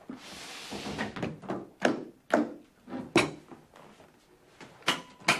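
Hard-shell briefcase handled on a table and opened: a short rustle, then a series of sharp clunks and clicks as it is set down and its catches and lid are worked.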